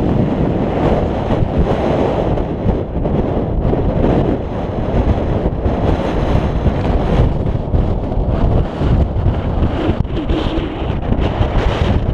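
Wind buffeting a camera's microphone: a loud, uneven rumble and rush that rises and falls with the gusts.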